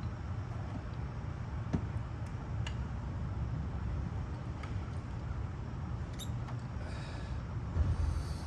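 A few faint plastic clicks as the tight backup-light bulb is worked loose from its socket in the tail light, over a steady low rumble that swells briefly near the end.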